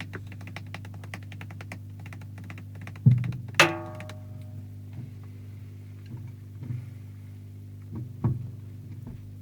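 Drums struck a few times during a sound check: a heavy thump about three seconds in, a louder ringing drum hit just after it, then scattered lighter hits. Rapid faint ticking comes in the first couple of seconds. A steady low electrical hum runs underneath the whole time, an unwanted noise somewhere in the mic and monitoring chain.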